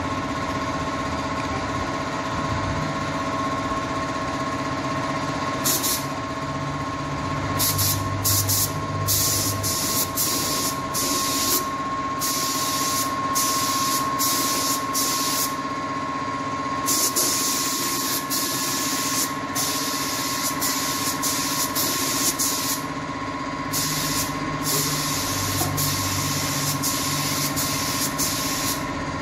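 Gravity-feed air spray gun spraying white synthetic enamel in repeated short bursts of hiss, one per trigger pull, starting about six seconds in. A steady motor hum runs underneath.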